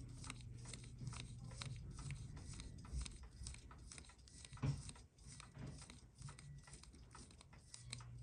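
Faint, rapid ticking and small clicks from a Seiko 6217 automatic watch movement in a movement holder while its hands are turned with the crown, with one slightly louder knock about halfway through.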